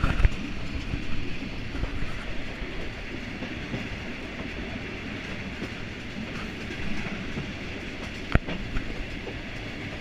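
Passenger train running along the track, heard from an open carriage doorway: a steady rumble of wheels on rails, with one sharp knock about eight seconds in.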